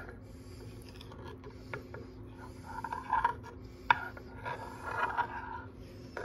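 A knife dragging and swirling through thick, soft fudge in a ceramic baking dish: soft scraping strokes, with a few light clicks, the sharpest a little past the middle.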